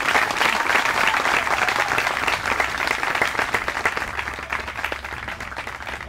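A small group applauding, strongest at first and fading over the next few seconds.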